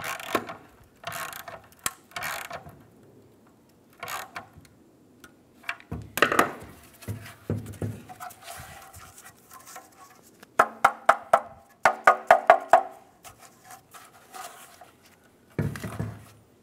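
A worm-gear hose clamp being tightened with a screwdriver around the rusted-through sheet-metal heat shield of an exhaust manifold catalytic converter. The sound is a scatter of metal clicks and clanks, loudest in a quick run of ringing clicks about two-thirds of the way through.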